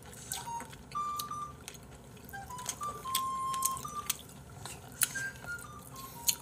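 Quiet background music: a simple melody of single notes that steps down in pitch near the end. Light clicks of spoons and chopsticks and eating noises run under it.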